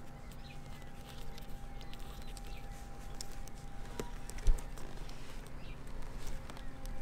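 Hands working sticky butyl tape around a stanchion base on a fibreglass deck: scattered small clicks and taps. One short low thump about four and a half seconds in, over a faint steady hum.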